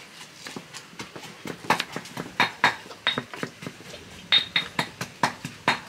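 A kitchen knife chopping on a cutting board: a run of irregular sharp knocks, about three or four a second, some with a brief metallic ring.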